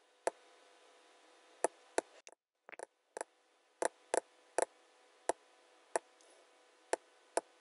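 Computer mouse clicking, about a dozen single clicks at an uneven pace, as pattern cells are toggled one at a time, over a faint hiss.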